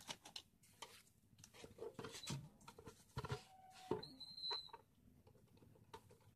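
Light clicks, taps and scrapes of a screwdriver and hands on a Deltron amplifier's metal case as its cover screws are undone, with a brief high squeak about four seconds in.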